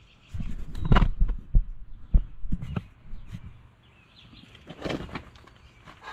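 A string of knocks and thumps, heaviest in the first second, with scrapes and gravel crunching as the camera is picked up and set back down on the gravel beneath the tractor. A few faint bird chirps can be heard in the quieter gaps.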